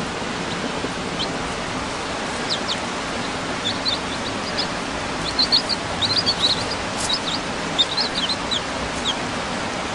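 Day-old chicks peeping: scattered short, high peeps, a few at first and coming thicker from about four seconds in, over a steady hiss.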